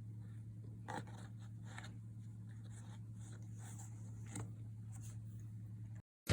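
Faint, brief scratchy rustles over a steady low hum, with the sound cutting off near the end.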